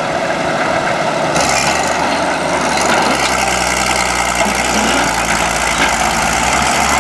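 A heavy machine's engine running steadily, with a low, even engine hum that becomes clearer about three seconds in.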